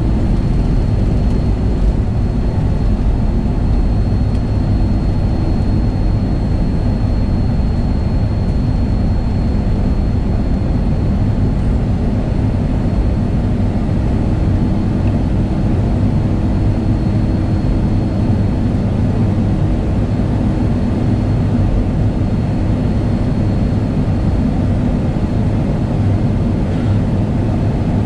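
Boeing 757's jet engines running at taxi idle, heard inside the cabin as a steady low rumble with a faint steady high whine.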